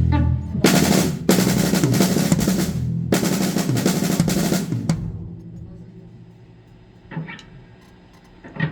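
Drum kit played loudly with heavy cymbal strikes, fresh hits about half a second, one second and three seconds in. The playing stops about five seconds in and the cymbals ring down, followed by two light single hits near the end.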